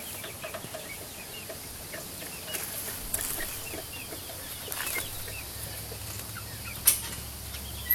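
A flock of chickens clucking, with many short calls scattered throughout. A sharp click or knock about seven seconds in is the loudest sound.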